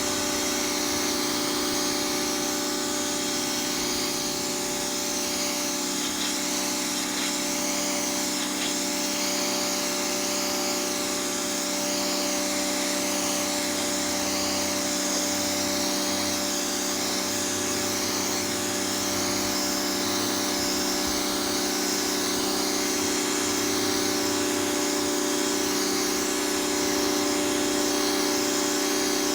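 High-pressure washer running steadily, its motor-pump giving a constant whine, with the hiss of the water jet spraying the pavement.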